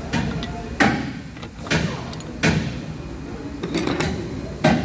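Loose metal parts of a Nissan Sunny engine being taken out and set down during a teardown, with sharp clanks and knocks about once a second.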